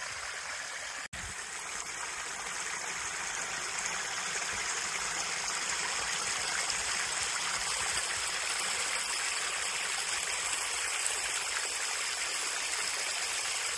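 Water of a small waterfall sliding down a bare rock face and splashing into a shallow pool: a steady rushing, which cuts out for an instant about a second in.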